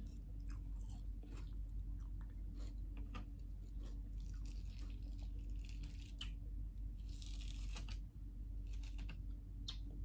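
Close-miked mouth sounds of a person eating thick yoghurt off a fork: wet smacking and chewing with many small clicks, two longer sticky stretches around the middle, over a steady low hum.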